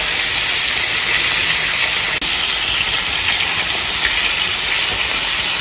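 Floured fish pieces frying in hot oil in a frying pan, a steady sizzling hiss.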